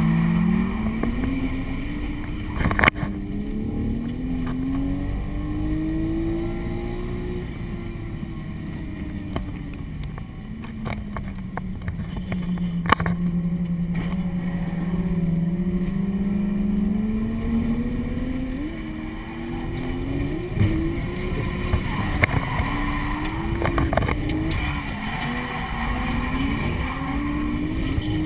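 A drift car's engine heard from inside the cabin, revving up and down through a slide. Its pitch holds steady for a few seconds midway, then jumps up and drops several times in quick succession near the end as the throttle is worked. Two sharp knocks stand out, one about three seconds in and one near the middle.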